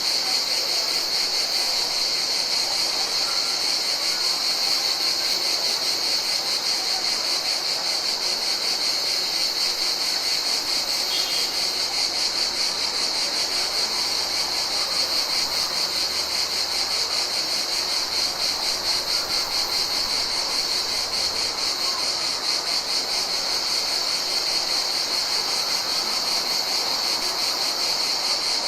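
A chorus of summer insects trilling continuously: one steady, high-pitched, finely pulsing drone that never breaks.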